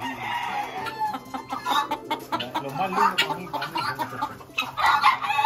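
Caged gamecock roosters clucking and calling over each other, with a longer held call, the start of a crow, near the end.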